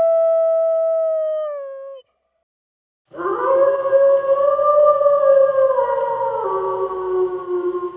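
Wolf howling: one long, steady howl that drops in pitch and stops about two seconds in, then after a second of silence a rougher howl with more than one voice overlapping, slowly falling in pitch.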